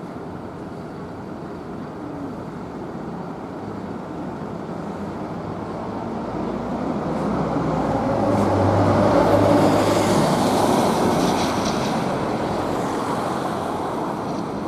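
A vehicle passing close by: its noise swells to a peak about nine seconds in, then fades away over a steady background of street traffic.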